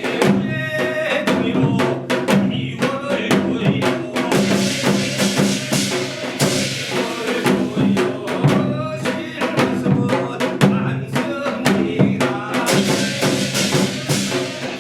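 Live Korean shamanic gut music in a modern arrangement: fast, dense drumming and percussion strikes over sustained instrumental tones.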